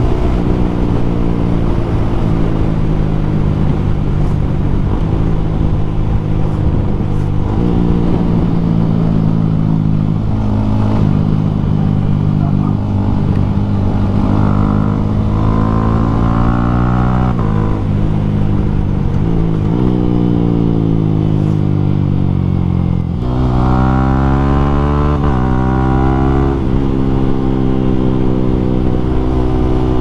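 Yamaha Sniper 155R's single-cylinder four-stroke engine breathing through an Akrapovic M1 exhaust while ridden through the gears. It holds steady stretches, steps in pitch at each gear change, and twice revs up in long rising sweeps, the second near three-quarters of the way in. After each sweep it drops back as the bike shifts down or slows.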